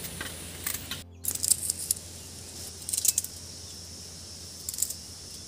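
Crisp clicking and crackling cuts as fresh chillies, onion and dry coriander are chopped and picked over by hand, in a few short clusters over a steady low hum.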